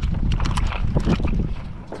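Wind buffeting the microphone, with a quick run of light knocks and clicks over the first second and a half.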